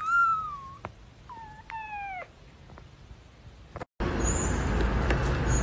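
Young kitten meowing twice, a short high mew and then a longer two-part one that falls in pitch at the end. After a brief dropout the sound cuts to a steady, louder background hiss.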